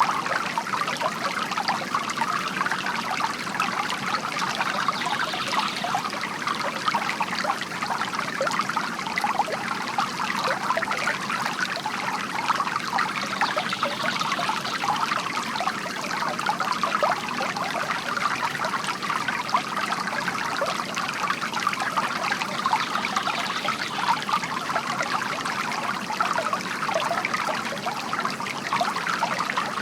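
Water from a bamboo garden fountain trickling steadily.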